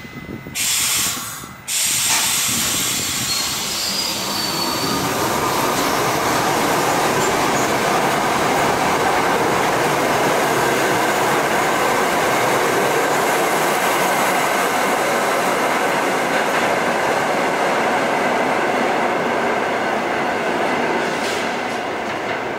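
R68A subway train closing its doors with a short burst of noise about a second in, then pulling out of the station. Its wheels and traction motors run loudly past the platform with some wheel squeal, then fade as the train leaves.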